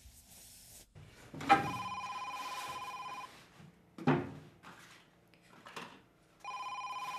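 Telephone ringing with an electronic two-tone warble: one ring of about two seconds, then a second ring starting near the end, unanswered. Between the rings there is a single sharp thud.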